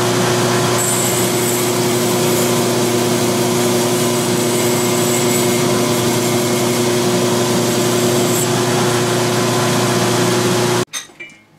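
Belt grinder running steadily with a 60-grit belt over a large contact wheel, hollow-grinding the bevel of a heat-treated steel adze; the high hiss of steel on the belt comes in about a second in and stops around eight seconds. The sound cuts off suddenly near the end, followed by a few light clicks.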